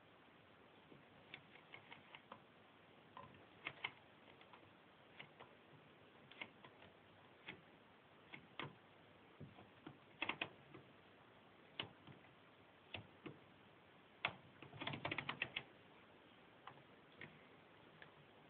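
Scattered sharp clicks and ticks at irregular intervals, with a quick flurry of clicks about fifteen seconds in, over near silence.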